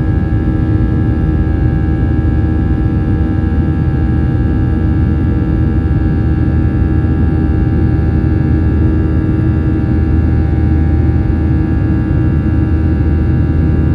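Boeing 737-800's CFM56 turbofan engines heard from inside the cabin while the jet climbs after takeoff: a steady low rumble with several steady whining tones over it.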